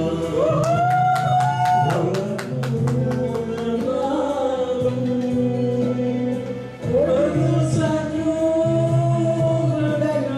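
Amplified singing into handheld microphones over recorded backing music played through a PA system, with long held, wavering sung notes.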